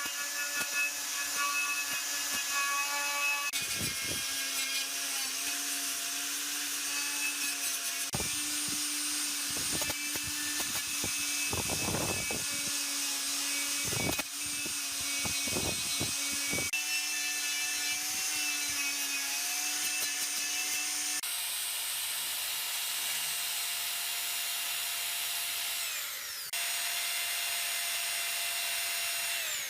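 Small handheld power tool running with an abrasive attachment: a steady motor whine over a high hiss of abrasion, with several short loud scraping strokes in the middle. The whine changes pitch abruptly a few times.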